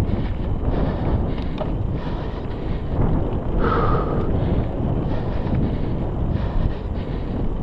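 Wind buffeting the microphone of a camera on a mountain bike riding fast, over the steady rumble of knobby tyres rolling on a dirt trail. A short higher-pitched tone sounds about halfway through.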